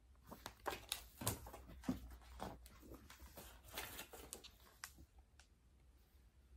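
Faint, irregular rustling and light taps of something being handled, stopping after about five seconds.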